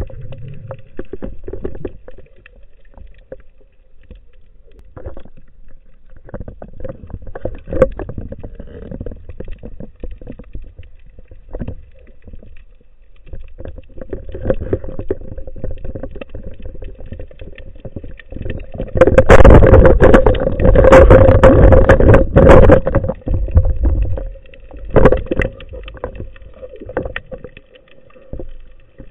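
Underwater noise from a camera mounted on a speargun during a breath-hold dive: faint water movement and scattered knocks over a steady hum. About two-thirds of the way through, a loud noisy stretch of about four seconds starts suddenly.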